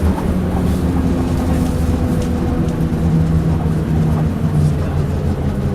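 Leyland Atlantean double-decker bus's diesel engine running, heard from inside the bus, its note dipping slightly a few seconds in and coming back up near the end, with a few faint knocks from the body.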